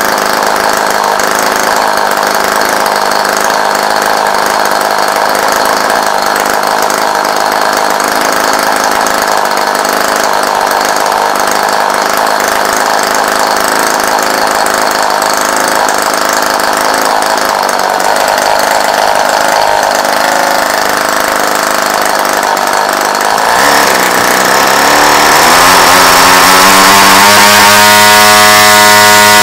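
Tartan 22 cc model aircraft engine, converted to spark ignition, running on a test stand and turning its propeller. About three-quarters of the way in its pitch briefly drops and then climbs as it speeds up, and it runs faster and louder near the end.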